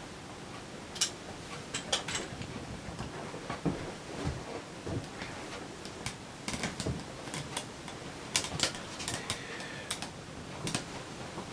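Scattered, irregular light clicks and knocks, some close together, with no steady rhythm.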